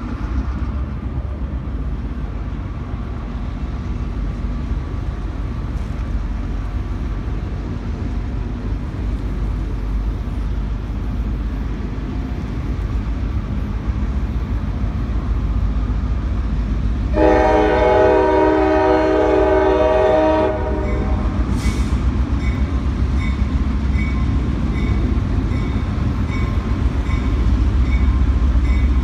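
Freight train's diesel locomotive rumbling as it approaches, growing louder toward the end. A little over halfway through it gives one long horn blast of about three seconds. After the horn, a bell dings about once a second.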